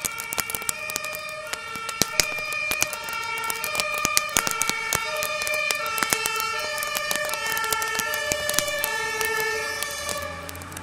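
Two-tone emergency-vehicle sirens, several sounding at once and out of step, alternating high and low over the sharp cracks and pops of a burning garden shed. The sirens stop about ten seconds in.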